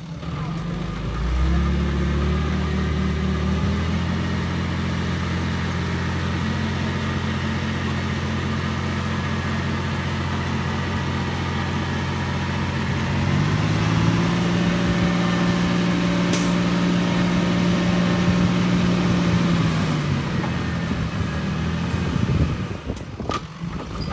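Bulldozer's diesel engine running steadily, revving up about a second in and again from about halfway, holding there for several seconds before dropping back. A few sharp knocks near the end.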